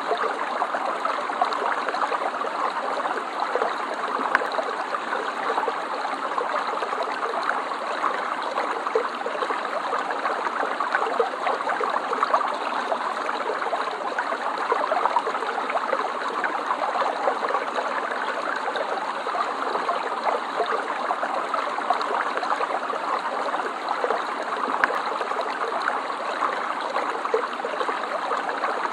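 Stream water flowing and babbling steadily, with a fine trickling, splashing texture.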